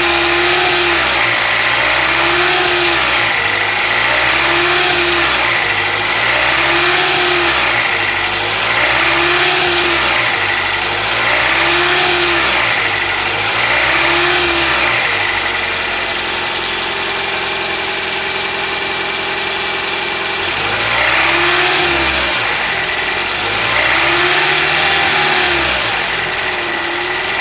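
Toyota Avalon Hybrid's 2.5-litre four-cylinder engine revved in short blips about every two seconds, pitch rising and falling each time. It settles to a steady run for about five seconds midway, then is revved again. Under the usual engine clatter there is a dull, lower-pitched, diesel-like pinging knock that comes and goes with the revs, which the owner takes for an abnormal knock.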